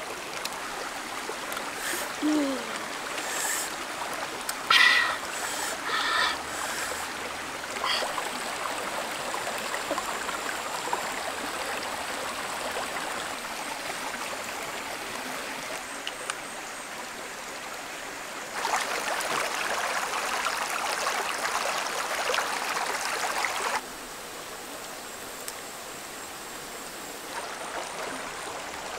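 Shallow rocky stream running steadily, with a few short clicks and knocks in the first several seconds. For about five seconds past the middle the rushing is louder, then drops back abruptly.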